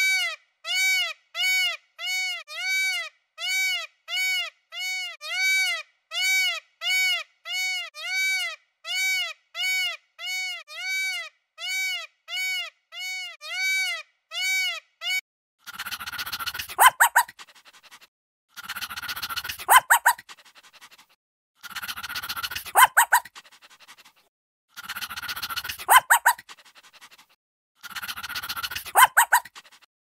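Peacock calling over and over, short calls that rise and fall in pitch, about one and a half a second, stopping about halfway. Then a puppy sound clip, a short noisy snatch with a few sharp loud notes, repeated five times with gaps between.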